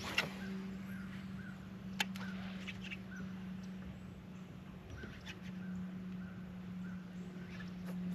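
Bow-mounted electric trolling motor humming steadily with a low, even pitch. A sharp click comes just after the start and another about two seconds in, as the cast goes out and the retrieve begins, with a few short high chirps scattered over the hum.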